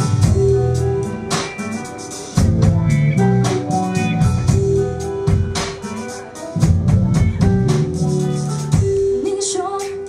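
Live band playing a song, heard from far back in the room: a drum kit keeps a steady beat under guitar and held chords. A singing voice comes in near the end.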